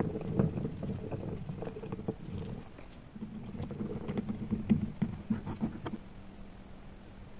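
Wooden stick stirring a clear liquid in a small plastic cup, with irregular scraping and tapping against the cup's sides, stopping about six seconds in.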